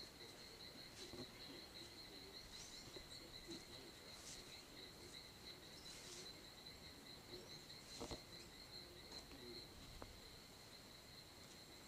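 Faint, steady, high-pitched insect trill from crickets in the wilderness, with a few soft clicks and a knock about eight seconds in.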